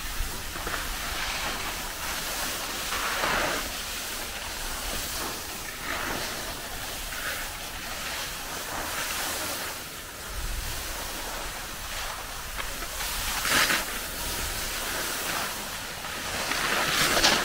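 Skis sliding and carving on packed snow, a steady hiss with a few brief louder scrapes, the sharpest about two-thirds of the way through, over a low rumble of wind buffeting the microphone.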